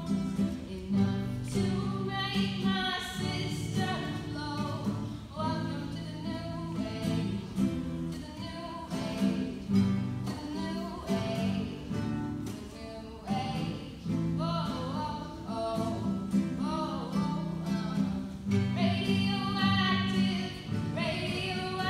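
A teenage girl singing solo, accompanying herself on acoustic guitar.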